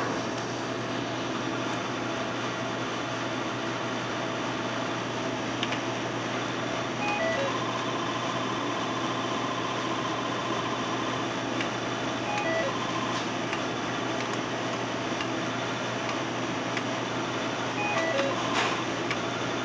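Cherry Master slot machine's electronic beeps over a steady hum: short jingles of a few stepped tones several times, and a rapid pulsing tone held for about three seconds in the middle as a win counts up on the credit meter.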